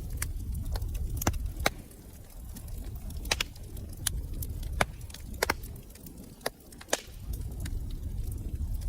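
Wood fire crackling in a fireplace: sharp pops and snaps at irregular intervals over a low rumble of flames. The rumble eases for a few seconds in the middle, then comes back.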